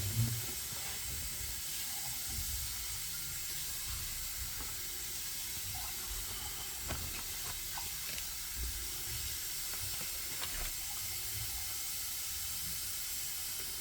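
Steady background hiss, with a few faint light clicks and taps scattered through it.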